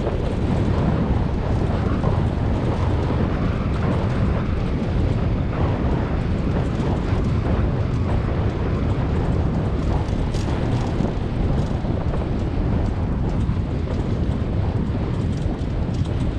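Steady rumbling noise of wheels rolling over a dirt forest track behind a running four-husky team, mixed with wind buffeting the microphone; a few light clicks and rattles come about ten to twelve seconds in.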